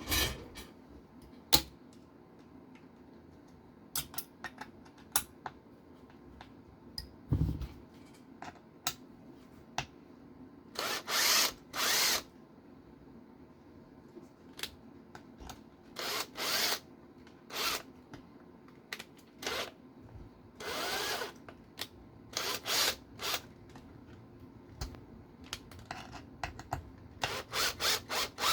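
Small cordless electric screwdriver or drill driving small screws in short bursts of half a second to a second, with sharp clicks of small parts and tools being handled between them.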